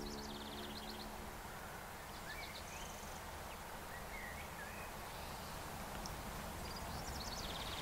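Outdoor ambience with birds chirping and giving short trills, over a steady low background hiss. A low held musical chord fades out about a second in.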